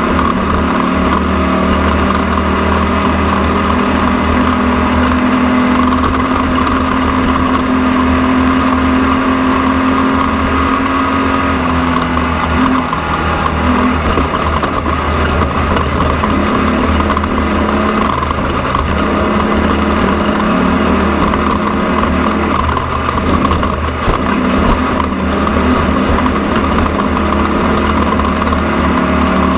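An engine running steadily, its pitch stepping down and up a few times midway.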